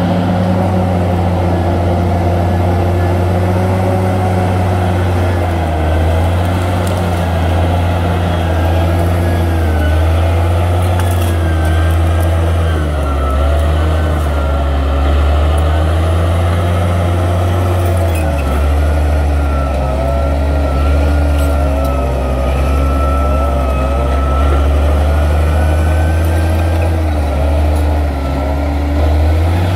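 Crawler bulldozer's diesel engine running steadily under load, with a higher whine that wavers up and down in pitch.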